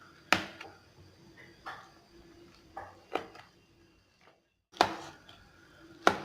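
A utensil knocking sharply as boiled cassava (tapioca) is crushed, about five or six hits spaced a second or so apart.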